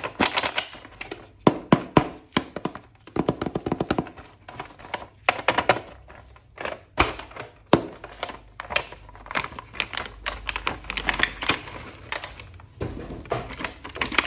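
Hands opening and handling a plastic toy action figure and its packaging: an irregular run of clicks, taps and knocks with some rustle between them.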